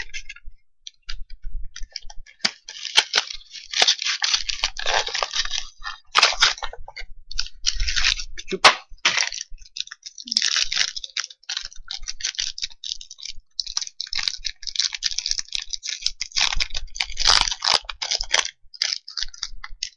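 A Yu-Gi-Oh! booster pack's foil wrapper being torn open and crinkled by hand, in irregular crackling bursts.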